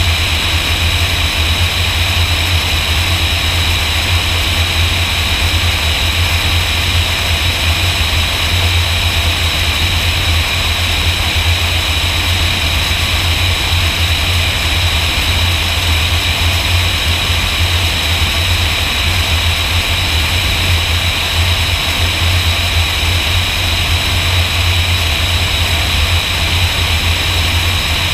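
Single-engine high-wing light airplane in cruise descent: a steady, deep drone of the piston engine and propeller with a hiss of wind noise over it.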